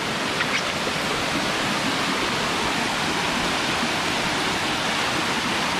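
Waterfall cascading over rock close by: a steady, unbroken rush of falling water.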